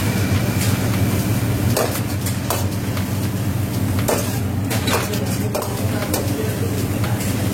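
A metal spatula stirring in a pan of frying vegetables and curry leaves, scraping and knocking against the metal in sharp, irregular clinks, over a steady low hum.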